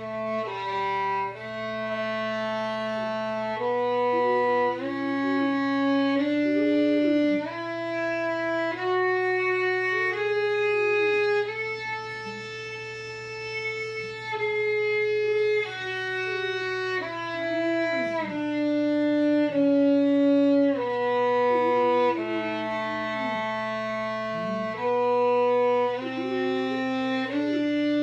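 Violin playing a slow melody of held notes, each a second or two long, stepping up and down with a few short slides between notes.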